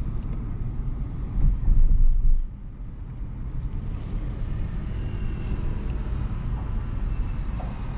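Inside-cabin drive noise of a 2023 Hyundai Exter's 1.2-litre Kappa petrol engine and its tyres on the road, a steady low rumble. It swells louder for about a second around two seconds in, then settles back.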